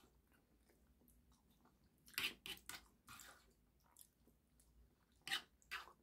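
Quiet close-miked eating sounds: chewing of soft chicken and rice, with short clicky bursts about two seconds in and again about five seconds in as a fork scoops and scrapes food on a plate.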